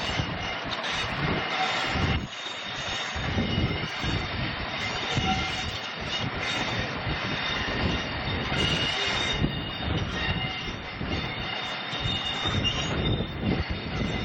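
Diesel-hauled passenger train headed by Class 50 locomotives, running steadily, with its wheels squealing in thin high steady tones over the rumble.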